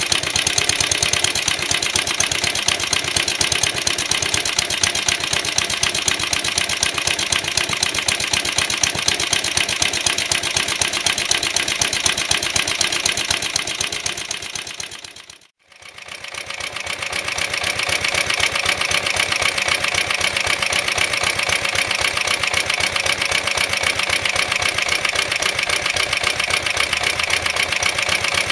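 Suffolk Iron Foundry 75G14 four-stroke single-cylinder side-valve petrol engine on a Suffolk Colt lawnmower, running steadily with an even, rapid firing beat through a replacement exhaust. The sound dips away briefly about halfway through and comes straight back.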